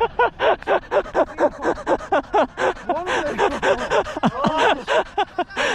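Hearty laughter close to the microphone, a rapid unbroken string of short 'ha' bursts about four or five a second, with more laughter overlapping it around the middle.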